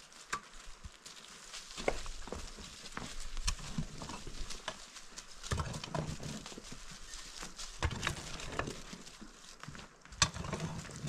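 Shovel blade digging into dry, stony soil, with irregular knocks and scrapes as it strikes earth and stones. Twice, about halfway through and near the end, come denser rushes of noise as loose dirt is scooped and thrown aside.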